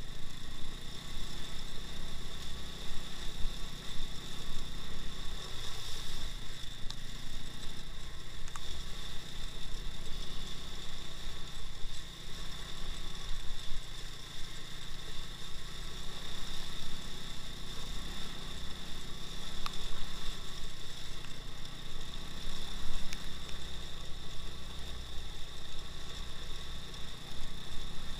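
The engine of a two-wheel-drive off-road motorcycle running steadily, with a steady high whine over it.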